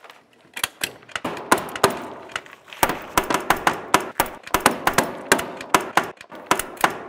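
Staple guns driving staples through house wrap into wooden trusses: a fast string of sharp snaps, several a second, starting about half a second in.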